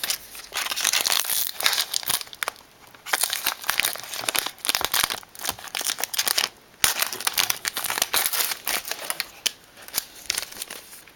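Plastic wrapper of a trading card pack being torn open and crinkled by hand, in crackly spurts with short pauses.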